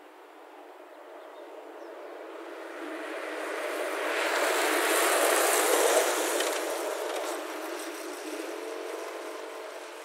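A car passing on a road: its noise swells to a peak about five seconds in and fades away. Under it runs the faint hum of the Parrot Disco's three-blade propeller.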